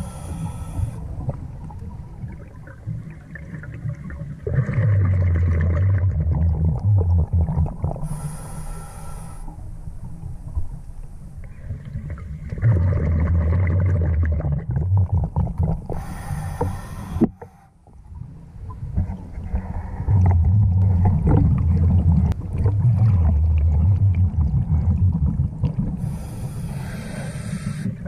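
Scuba diver breathing through a regulator underwater, four breaths in all. Each is a short hiss from the regulator on the inhale, followed by several seconds of low bubbling as the exhaled air escapes.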